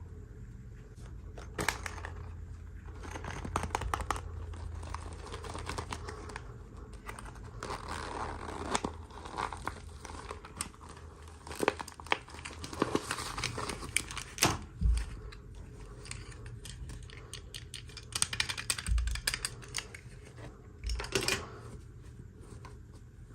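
Toy packaging being unboxed by hand: plastic and cardboard crinkling and crackling, with sharp clicks and a few soft thumps scattered through.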